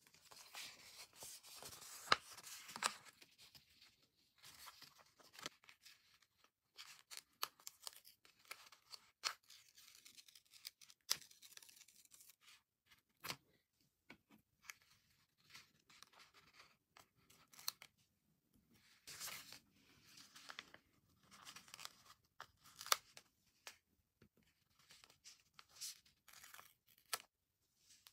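Sticker sheet being handled and peeled: irregular papery rustling and tearing sounds with many small sharp clicks as stickers come off their backing.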